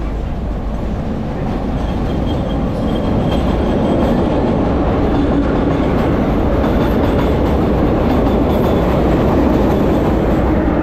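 Vintage BMT AB Standard subway car running on elevated track, its wheels clattering and rumbling over the rails. A second vintage subway train passes close on the next track, and the combined noise grows louder over the first few seconds.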